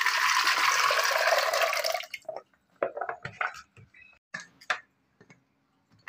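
Water and cut cluster figs poured from a plastic bowl into a pressure cooker: a steady splashing pour for about two seconds, then a few scattered knocks and clinks of the cooker and its lid being handled.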